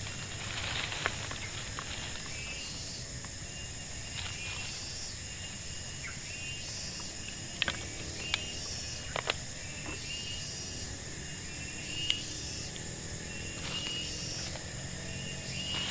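Forest ambience: a steady high insect drone with repeated short chirping calls, and a few sharp clicks about halfway through.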